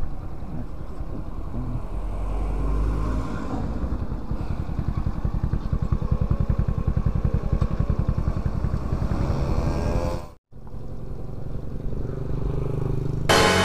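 Docker C50 moped's small engine running steadily, heard close up. The sound drops out briefly about ten seconds in, then the engine comes back.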